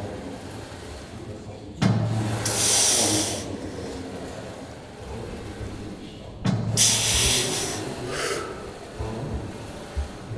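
A man breathing hard while straining through heavy hack squats. Twice, about five seconds apart, a low grunt is followed by a forceful hissing exhale through the teeth, one per rep.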